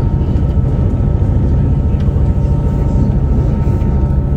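Boat engine running steadily at speed: a loud, even, deep rumble with a faint steady whine above it, heard from inside the cabin.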